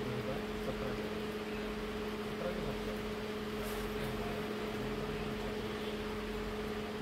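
Steady mechanical hum with two constant tones over an even hiss, unbroken throughout.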